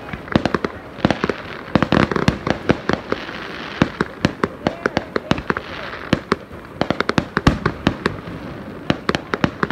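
Fireworks going off: a rapid, irregular string of sharp cracks and pops over a steady hiss.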